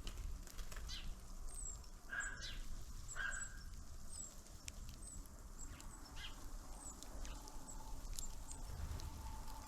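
Small birds at a winter feeder giving short, thin, high call notes, each dropping slightly in pitch and repeated every second or so, with a few sharp clicks among them.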